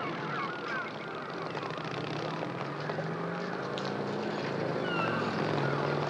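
City street traffic: car and bus engines running with a low drone that wavers in pitch. Birds squawk overhead in short sliding calls at the start and again near the end.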